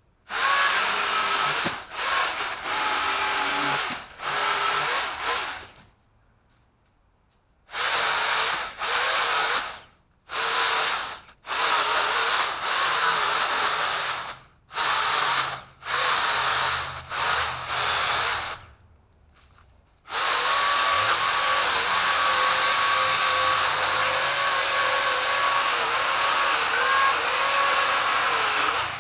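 Pole saw motor running in repeated short bursts with quiet gaps between, its whine dipping in pitch now and then as the chain cuts into branches, then one long steady run of about nine seconds near the end.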